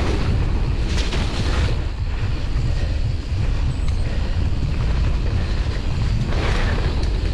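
Wind buffeting an action camera's microphone on a mountain bike descending a dirt trail, a constant low rumble with tyre and bike noise over it. Brief louder bursts of noise come about a second in and again near the end.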